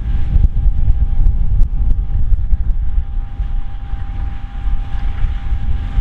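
John Deere S690i combine harvester running while cutting wheat: a deep, continuous rumble of engine and threshing machinery with a steady whine on top, and gusts of wind buffeting the microphone.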